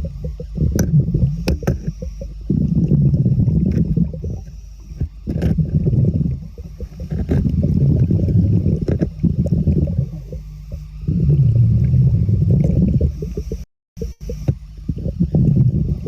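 A scuba diver breathing underwater through a regulator: exhaled bubbles gurgle and rumble in bursts every few seconds, with quieter breaths in between. The sound drops out completely for a moment near the end.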